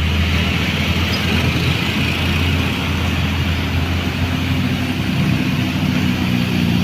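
A large bus's diesel engine running as the bus goes by: a steady low drone, strongest in the first few seconds, with a hiss above it.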